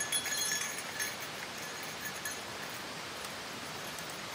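Footsteps crunching on gravel with small metal gear on a backpack jingling, fading out about a second in as the walker moves away. After that only a steady, even outdoor hiss remains.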